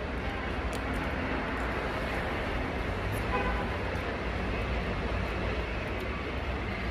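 Steady background rumble and hiss, like city traffic, with a brief faint tone about three seconds in.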